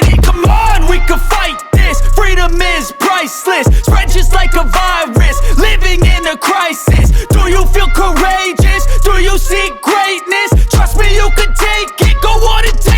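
Hip hop music: long deep bass notes under a bending melodic line.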